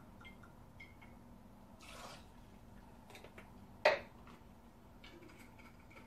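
Soft pour of liquor from a jigger into a cocktail shaker, with faint small clicks of glass and one sharp clink about four seconds in.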